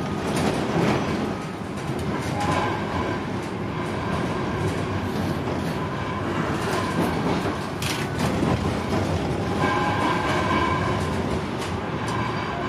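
Tram running on street rails, heard from inside the front cab: a steady rolling rumble, with high whining tones that come and go a couple of times. There is a single sharp click about eight seconds in.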